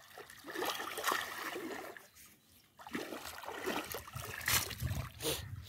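Water splashing and dripping as a wet cast net is hauled up out of shallow water and gathered by hand, in two spells with a short lull between.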